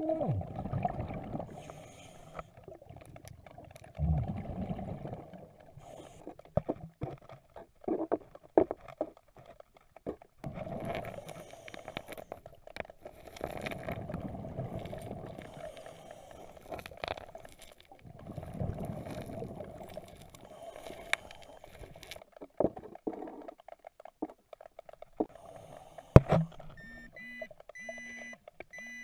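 Underwater sound of a diver working the river bed, with bursts of bubbling rumble and sharp clacks of rocks and gravel being shifted. Near the end an underwater pinpointer metal detector starts beeping in a quick, even series of tones.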